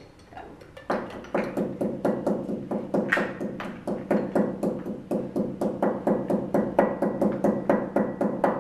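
Pestle pounding mint leaves in a small mortar: quick, fairly even knocks, about four to five a second, each with a short pitched ring, starting about a second in.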